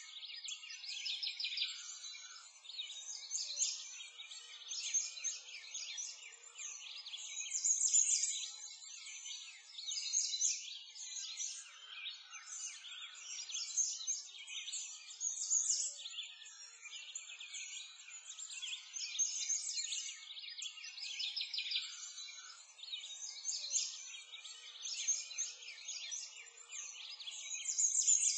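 A dense chorus of many birds chirping and singing at once: short high calls and trills overlapping without a break, swelling and easing every few seconds.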